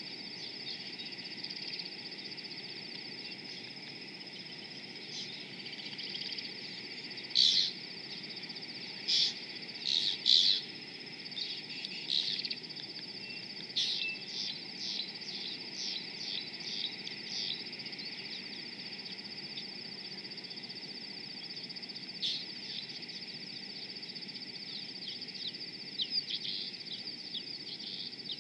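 Rüppell's long-tailed starlings calling in short notes, in scattered clusters: loudest about a quarter of the way in, with a quick run of calls around the middle and more near the end. A steady high-pitched insect drone runs underneath.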